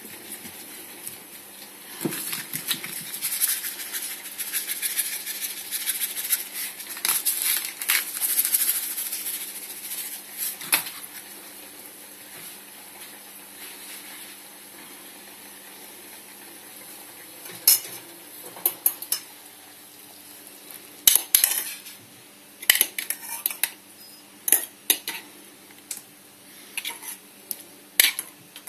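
Metal spoon clinking and scraping against a metal pot in sharp, irregular taps that come in small clusters through the second half. Earlier there is a stretch of soft rustling from hands working over the pastry.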